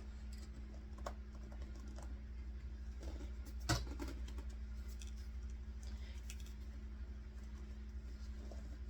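Scattered light clicks and taps of hands working plastic cable ties and doll limbs, with one louder knock a little under four seconds in, over a steady low hum.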